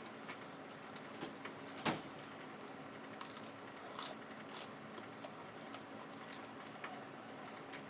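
Close-up eating sounds: quiet chewing with scattered small mouth clicks and smacks, a sharper click about two seconds in and another about four seconds in, over a steady low hum.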